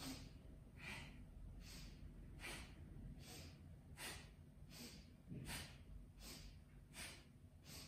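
A woman's audible breathing in a quick, even rhythm, about one breath every 0.8 seconds, inhaling and exhaling in time with a seated left-right twist of the torso.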